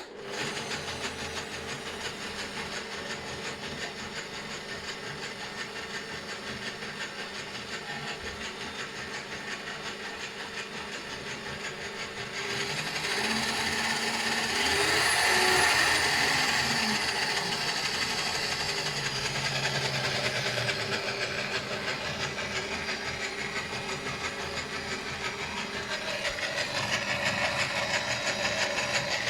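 Scheppach DP50 bench drill press switched on and running, with a grinding noise that the owner suspects comes from a bearing. About twelve seconds in it grows louder and brighter, with a whine that rises and then falls in pitch.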